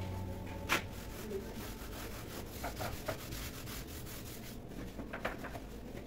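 Hand cleaning of a refrigerator's plastic interior: a steady rubbing, broken by a few light knocks.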